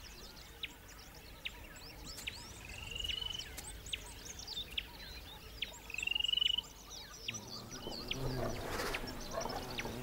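Wild birds calling: many quick high chirps, with two short rising trills about a third and two thirds of the way through. A faint low steady hum comes in near the end.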